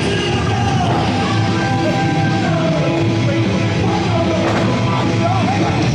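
Loud rock entrance music with a singing voice, played over the arena sound system.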